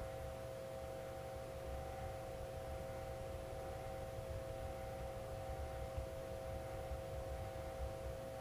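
Steady hum of a few held tones over a low rumble, with the faint scraping of a yanagiba's White #1 steel blade being stroked across a whetstone.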